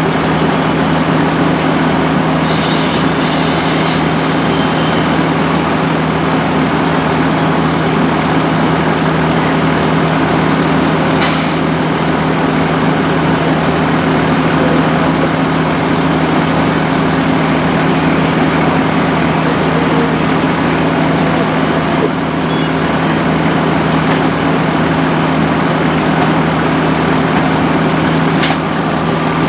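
Fire truck's diesel engine running steadily with a constant low drone, with brief air hisses about three seconds in and again about eleven seconds in.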